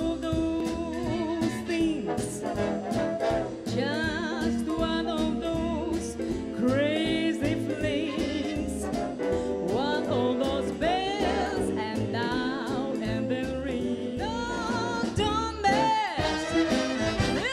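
A woman singing live into a microphone with vibrato, backed by a band with double bass and drums.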